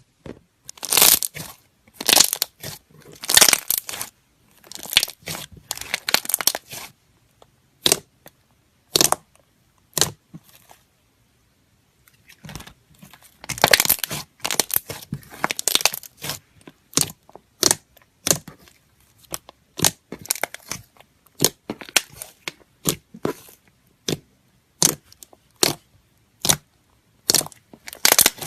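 Slime being squeezed and pressed by hand, giving short crackling, crunching pops in quick irregular runs, with a pause of about two seconds a third of the way through.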